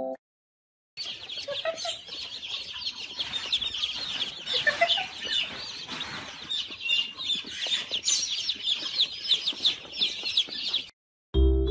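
A crowd of baby chicks peeping nonstop, many high, short peeps overlapping. It starts about a second in and stops shortly before the end.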